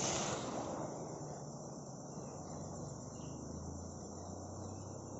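Steady high-pitched drone of insects over the low, steady rush of the flooded Bhadra River.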